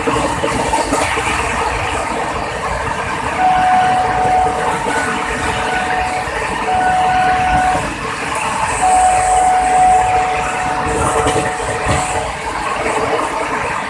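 Jan Shatabdi express train running at high speed: a continuous noisy rumble and rattle of wheels on the track. A steady high whine comes and goes three times, from about three seconds in to about twelve seconds in.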